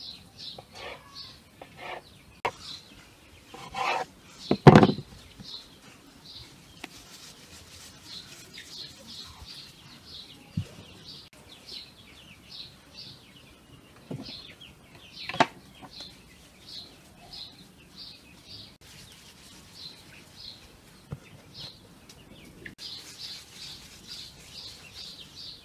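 A small bird chirping over and over, short high chirps about twice a second. A few knocks from dough work on a wooden board break in, the loudest about five seconds in and another about fifteen seconds in.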